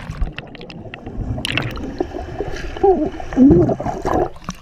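Pool water churning and bubbles gurgling, heard with the camera underwater, as a swimmer blows out air below the surface. About three seconds in come a few short sliding vocal sounds, rising and falling.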